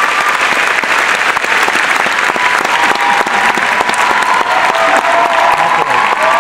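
Large audience clapping steadily, with a few long held tones (cheers or whistles) over the clapping.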